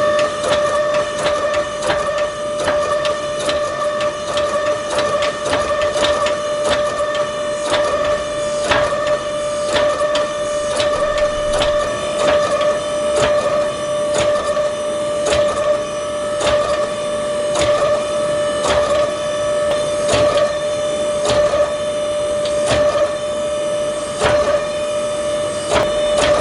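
A steady machine hum with a constant pitch, overlaid by frequent sharp metallic strikes that ring briefly, at times about two a second, in a forging shop working stainless Damascus steel.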